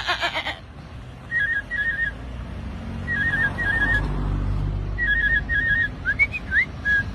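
A person whistling an imitation of a birdcall: three short bursts of rapid chirping notes, then a few quick upward-swooping whistles and a short held note near the end.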